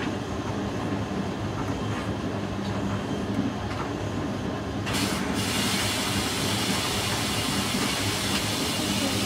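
Hoover DYN9144D3X washing machine running early in a rapid wash of bedding, with a steady low hum. About five seconds in, a loud, even hiss starts abruptly and keeps on.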